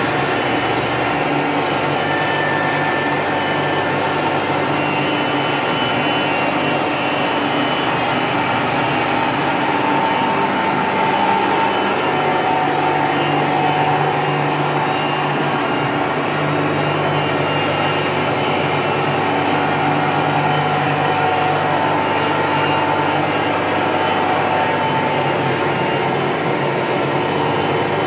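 Bavelloni PR 54 five-wheel straight-line glass edging machine running steadily: its grinding-wheel motors and conveyor give a constant motor hum and whir.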